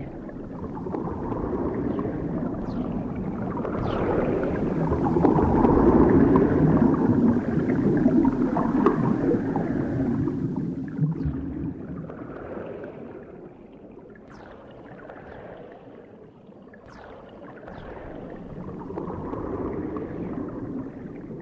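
Underwater bubbles: a dense, gurgling bubbling that swells up, eases off about halfway through and builds again near the end, with scattered short rising blips of single bubbles.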